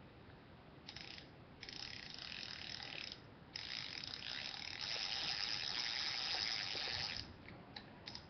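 Shakespeare spinning reel cranked by hand to wind the line back in, its gears giving a fast whirring clicking. It comes in three spells: a brief one about a second in, one of about a second and a half, and a longer, louder one of about three and a half seconds.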